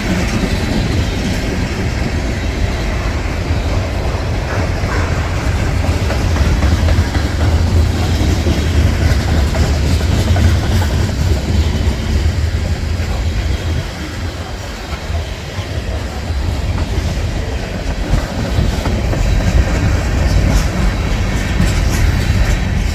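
Norfolk Southern freight train rolling past close by: a continuous heavy low rumble of the train on the rails, easing slightly about two-thirds of the way through.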